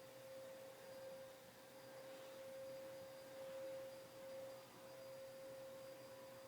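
Faint, steady high-pitched electrical whine, one unchanging tone, with a sleeping dog's breathing rising and falling softly under it.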